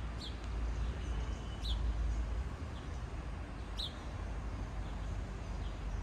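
A small bird chirping: three sharp, short chirps a second or two apart, with a few fainter ones. Under them is a low rumble of wind on the microphone.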